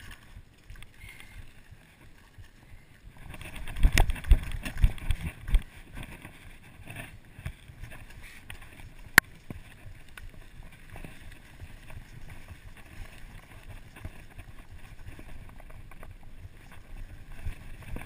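Mountain bike rolling down a gravel trail: tyres on loose gravel with the frame rattling and knocking over bumps, heaviest about four to five and a half seconds in, and one sharp knock about nine seconds in. Some wind on the microphone.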